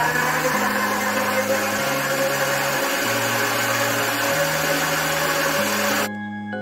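Electric blender running steadily, grinding onion and potato with water into a smooth purée, then cutting off suddenly about six seconds in. Soft background music plays underneath.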